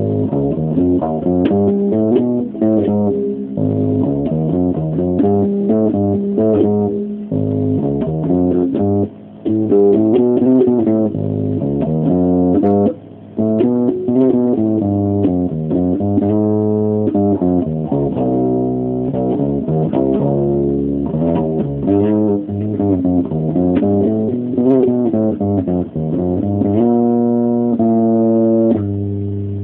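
Electric bass guitar played solo: improvised riffs of plucked notes, with two short breaks early on the way and a run of notes sliding in pitch about two-thirds through, moving up to higher notes near the end.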